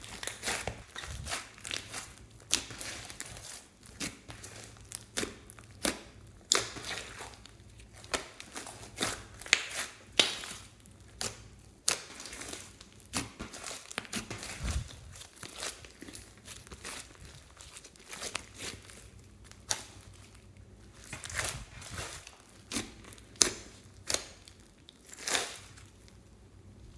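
A large lump of glittery slime with small beads mixed in being squeezed, kneaded and stretched by hand: irregular sticky crackles, small air pops and squelches, some sharper than others.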